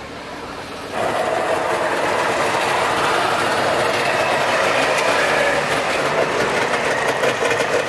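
Trabant's two-stroke engine running close by, loud and steady from about a second in.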